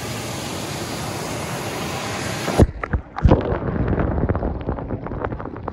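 Small waterfall rushing steadily into a pool. About two and a half seconds in, the microphone plunges underwater: the rush turns muffled and dull, with bubbling and a run of clicks and knocks.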